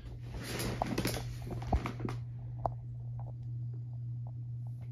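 Handling noise of a phone camera being moved and set in place: rustling and knocks for about two seconds, with one louder bump about a second and a half in. After that only a steady low hum with a few faint clicks remains.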